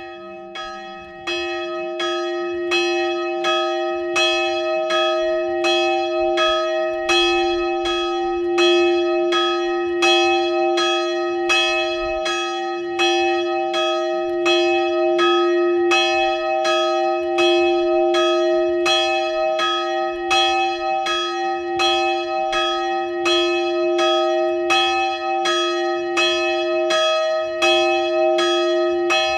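Swinging bronze church bell, the 132 kg Szent Imre bell cast by László Szlezák in 1927 and tuned to D-sharp/E-flat, tolling under full swing. The clapper strikes it at an even pace, roughly once every three-quarters of a second. It starts right at the outset and reaches full strength after about a second.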